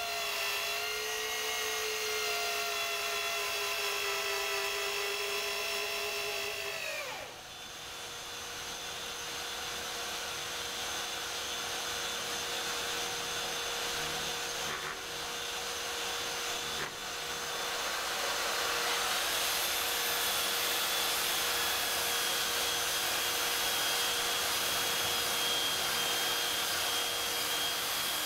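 An electric drill drives a long screw into the wooden rudder blade, running steadily, then winding down sharply in pitch about seven seconds in. Then a random orbital sander runs steadily on the wood for the rest, with a higher whine joining in about two-thirds of the way through.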